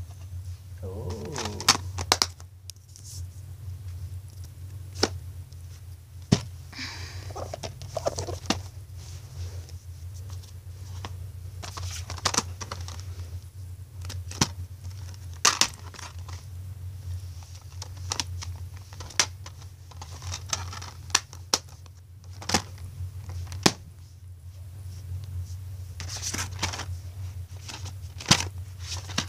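Plastic DVD cases being handled: irregular sharp clicks and snaps with some crinkling, over a low steady hum.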